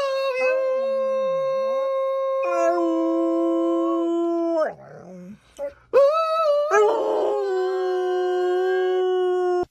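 A dog howling in two long, steady howls with a short break between them. The second howl swoops up in pitch at the start and cuts off suddenly at the end.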